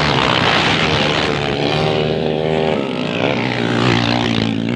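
Several 450 cc dirt bike engines revving hard as the bikes pass close by on a dirt flat-track, the pitch rising and falling with the throttle.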